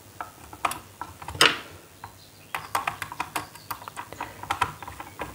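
Small clicks and taps on a plastic switch board as a wire is fitted to a switch's screw terminal and a screwdriver tightens the terminal screw. A sharper click comes about a second and a half in, and a quicker run of small clicks follows from about halfway.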